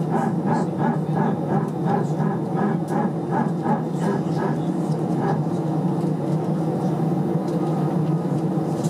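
Steady cabin hum of an Airbus A319 parked at the gate, heard from a window seat. For the first five seconds or so a short pulsing tone repeats about two to three times a second, then stops.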